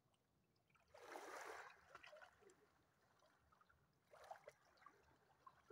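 Shallow seawater splashing twice, a longer splash about a second in and a short one just after four seconds, with faint lapping between.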